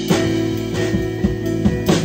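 Live rock band jamming: electric guitar and bass guitar holding chords over a drum kit, with strong drum-and-cymbal hits right at the start and again just before the end, and lighter drum hits between.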